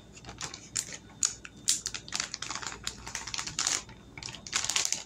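Plastic zip-top bag crinkling and crackling as hands grip and work its open top, in irregular rapid bursts, thickest in the middle and again near the end.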